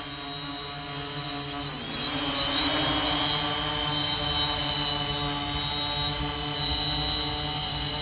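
Large multirotor drone in flight, its propellers and motors whining with several steady tones. About two seconds in, the pitch dips briefly and then climbs back as the motors change speed.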